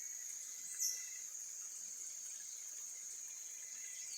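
Steady high-pitched insect trill from the forest, with a faint hiss of ambience underneath. A bird gives one short call that slides down in pitch about a second in.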